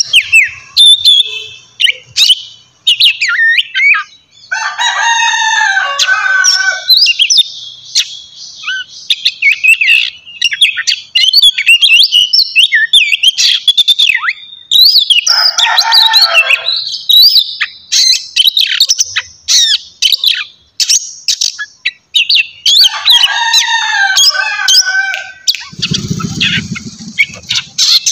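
Oriental magpie-robin (kacer) singing a fast, varied run of high whistles and chirps. Three times it breaks into longer, harsher and lower calls of about two seconds each. A low rumble comes near the end.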